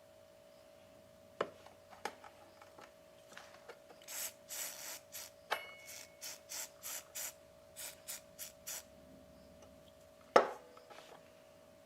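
Short rasping strokes of hand work on a part, about a dozen in a row over four or five seconds, with a couple of clicks before them and one sharp knock near the end, over a faint steady tone.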